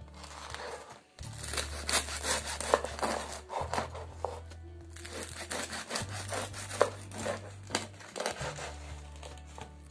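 Kitchen knife sawing through a freshly baked loaf of crusty village bread on a wooden board, in repeated back-and-forth strokes, the crisp crust crackling and rasping under the blade.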